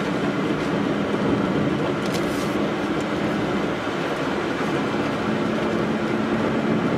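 Steady car cabin noise while driving: an even engine drone with tyre and road noise, heard from inside the car.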